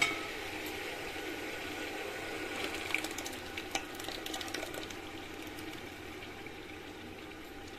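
Hot oil and yogurt masala sizzling and bubbling steadily in a metal pan as a wet ground cashew-and-onion paste goes in, with a few sharp ticks about three to four seconds in.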